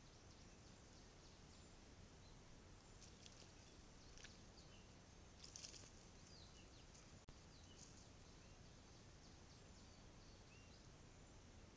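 Faint open-air ambience: a steady high insect drone with scattered small bird chirps, and a brief cluster of soft rustling scrapes a few seconds in.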